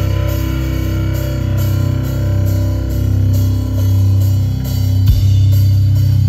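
Live rock band playing amplified through a PA: electric guitars and bass holding long low notes over the drums, with a single hit about five seconds in.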